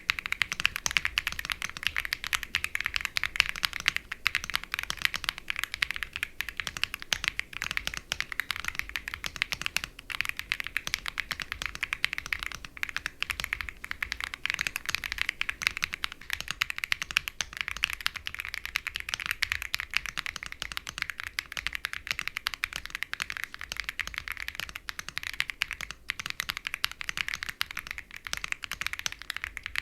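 Fast, continuous typing on a Velocifire AL65 65% aluminum mechanical keyboard with factory-lubed linear switches: a dense, unbroken stream of keystrokes.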